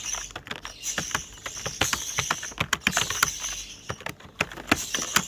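Typing on a computer keyboard during a timed typing test: rapid, uneven key clicks with a couple of short pauses.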